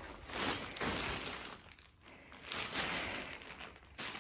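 Plastic wrapping sheet on a new mattress rustling and crinkling in two bursts as it is pressed and moved.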